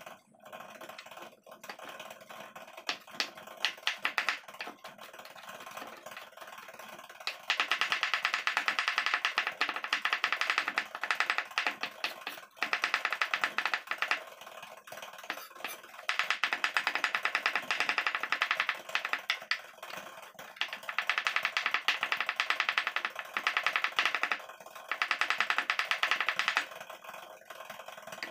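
Kitchen knife chopping and mincing peeled garlic on a wooden cutting board: lighter scattered taps at first, then long runs of very fast, even knife strikes on the board, broken by short pauses.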